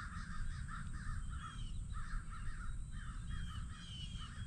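Birds calling: a steady run of harsh, rapidly repeated calls, about three to four a second, with short higher chirps mixed in.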